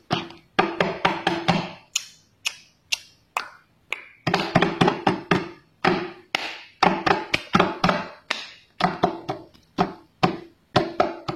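Background music made of quick struck or plucked notes with a light, tapping beat.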